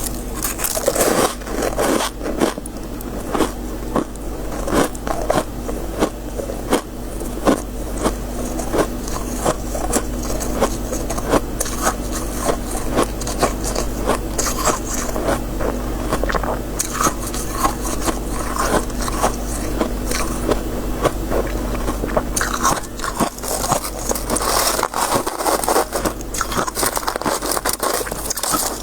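Close-up biting and chewing of crisp freezer frost (shaved ice), a dense run of irregular crunches with some stretches of higher, grainy hiss. A low steady hum sits underneath.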